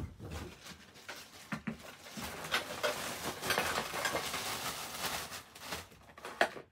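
Clear plastic wrapping crinkling and rustling as it is pulled off a folded plastic baby bassinet frame, with scattered light clicks of the frame's parts. It begins with a sharp knock.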